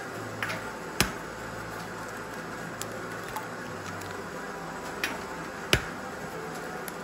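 Eggs cracked against the rim of a ceramic bowl: two sharp taps, about a second in and again near the end, each with a lighter tap just before it, over a low steady hum.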